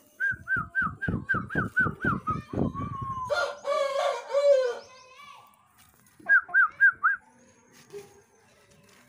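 Chicken calling: a quick run of short clucks, about four a second, for three seconds, then one longer drawn-out call, and a few more clucks later on.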